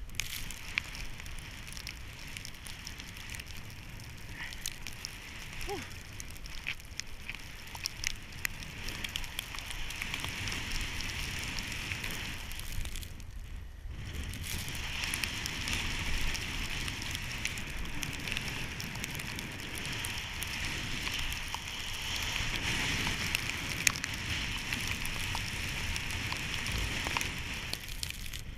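Snowboard sliding through fresh powder: a steady crackling hiss of snow under the board, with wind rumbling on the microphone. The hiss drops away for about a second around the middle, then comes back a little louder.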